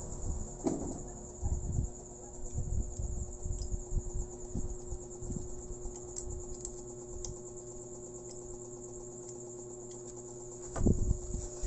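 A steady, high-pitched trill with a faint mains-like hum under it, broken by soft low bumps and a louder cluster of bumps near the end.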